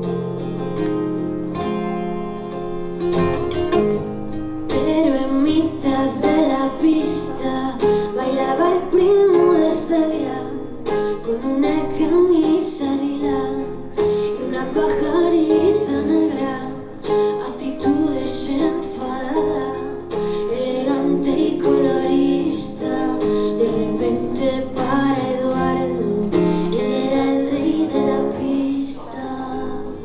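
Two acoustic guitars playing a slow song together. A woman's voice comes in singing over them about four or five seconds in and carries on.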